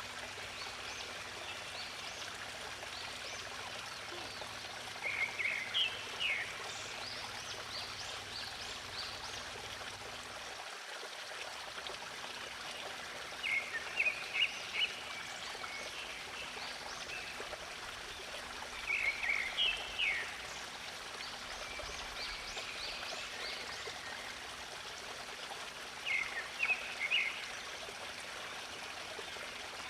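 Water running steadily in a stream. A songbird repeats a short phrase of quick chirps about every six to seven seconds, with fainter, higher chirps between.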